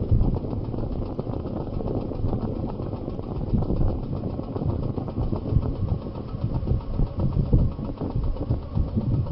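A vehicle driving along a paved road: engine and road noise mixed with uneven wind buffeting on the microphone.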